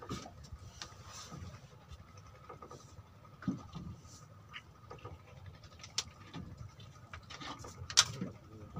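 Boat noises on a small wooden fishing boat: scattered light knocks and clicks, the sharpest about eight seconds in, over faint water patter and a steady faint hum.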